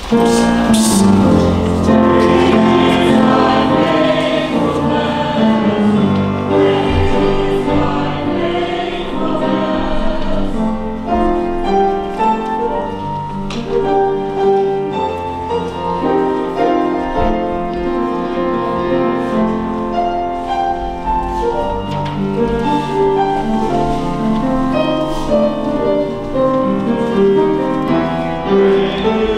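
Choir singing a hymn in parts, with held chords moving from note to note. It starts suddenly.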